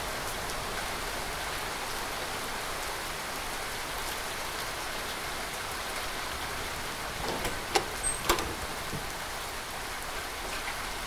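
Steady rain falling. About three-quarters of the way through come two or three sharp clicks as a door is unlatched and opened.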